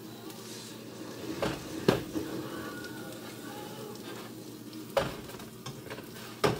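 A plastic spatula working in a frying pan, knocking against the pan four times, over the steady sizzle of a pancake frying.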